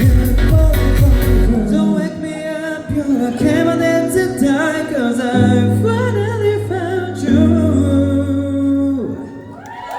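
Pop song with singing: a heavy beat for the first two seconds drops out, leaving held bass notes under a wavering sung melody. The music fades away just before the end.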